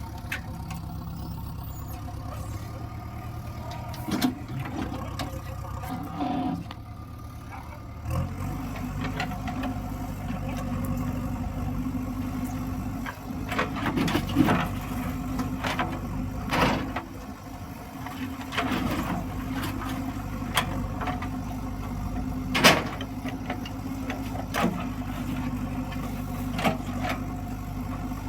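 Heavy diesel machinery engine running steadily, its note changing and growing louder about eight seconds in, with several short knocks and clanks scattered through.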